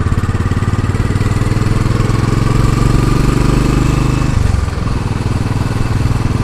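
Royal Enfield Classic 500's single-cylinder engine running under way. The note climbs slightly, then drops about four seconds in, and the engine carries on at the lower note.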